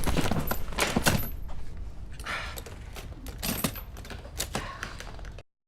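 Clinking and rattling clicks mixed with a few short muffled groans, over a low rumble. The sound cuts off suddenly to silence about five and a half seconds in.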